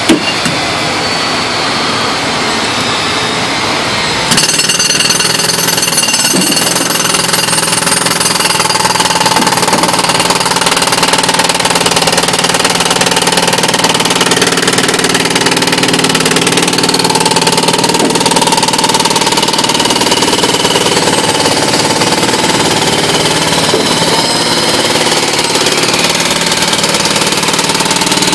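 Jackhammer breaking up a concrete sidewalk, hammering continuously; it gets louder about four seconds in.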